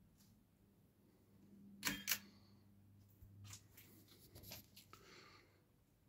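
Worn-out Alaska ceiling fan running with a faint, steady motor hum. Two sharp clicks come close together about two seconds in, and scattered smaller clicks and knocks follow a little later.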